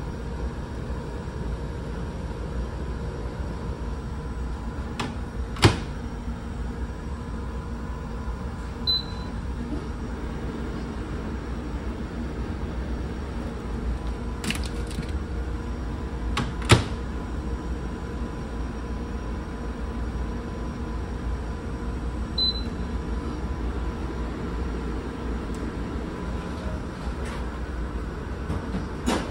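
Steady low rumble of a ferry's engines, with a few sharp clunks from a microwave door being opened and shut and two short high beeps from the microwave's keypad.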